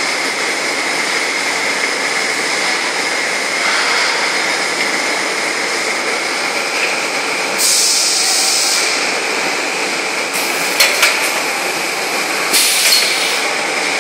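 Servo-driven tissue packing machine running: a steady mechanical clatter with a constant high whine. Compressed air hisses briefly about eight seconds in and again near the end, and a few sharp clicks come just before the second hiss.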